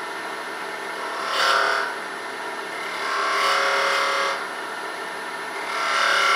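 Wood lathe running steadily while a point tool is pressed three times into the spinning wooden handle to cut decorative grooves, each cut a brief scraping hiss with a ringing squeal; the third starts near the end.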